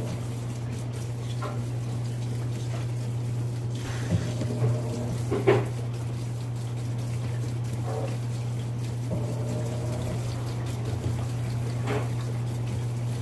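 Automatic washing machine filling with water over a steady low hum, with a few sharp knocks, the loudest about five and a half seconds in.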